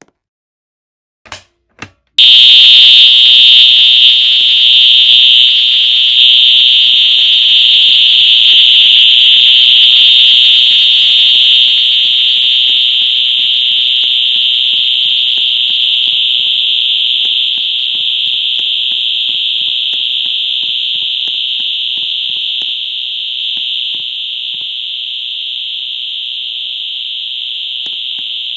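A fire alarm sounder goes off about two seconds in, after a couple of faint clicks, during a fire alarm system test. It gives a loud, steady high-pitched tone that gradually gets quieter.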